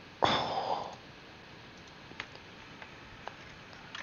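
A few faint, single computer mouse clicks at irregular intervals, after a short breathy rush of noise near the start.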